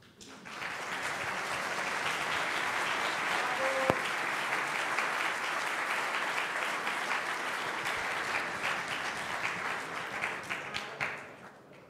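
Audience applauding. It swells about half a second in, holds steady, then dies away near the end. A single brief knock sounds about four seconds in.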